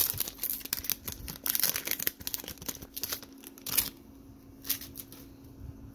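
Foil trading-card pack wrapper crinkling as it is pulled open and the cards are slid out, dense crackling for about four seconds. It then turns quieter, with a few soft clicks of the cards being handled.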